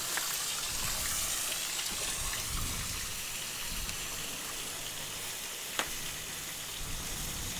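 Bacon frying, a steady sizzling hiss with small crackles and one sharp pop of spitting fat near the end.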